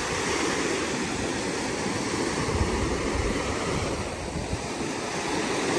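Small Gulf of Mexico surf breaking and washing up a sandy beach in a steady rush, with wind rumbling on the microphone.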